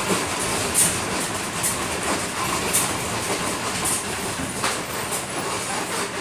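Bus cab interior while driving: steady engine and road noise, with repeated knocks and rattles from the bodywork.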